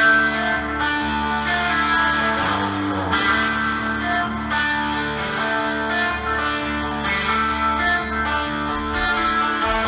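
Instrumental music led by electric guitar with effects and some distortion, over steady bass, played back through Rogers LS7t loudspeakers.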